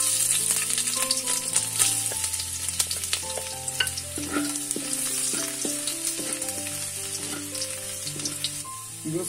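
Chopped ginger and garlic frying in hot coconut oil in a wok. The sizzle and spatter start suddenly as the pieces hit the oil, with many small pops, while a wooden spatula stirs them.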